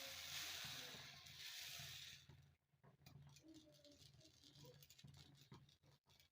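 Faint sizzling of set dosa cooking on a hot griddle, which cuts off abruptly about two seconds in. A low steady hum and a few small clicks follow.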